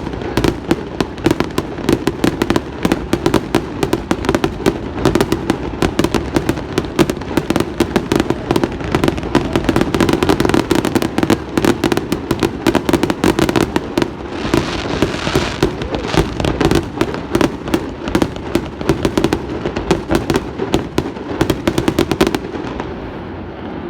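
Fireworks going off in a rapid barrage, many bangs a second without a break, stopping suddenly about a second before the end.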